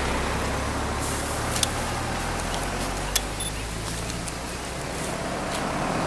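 A vehicle engine idling steadily, its low hum fading after about four seconds, with two sharp clicks about a second and a half and three seconds in.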